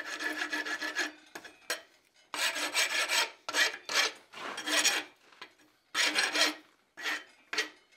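A hand rasp drawn across red-hot tool steel (hot rasping), filing off the rag (burr) left from forging. It sounds as about seven rough scraping strokes, each under a second long, with short pauses between them.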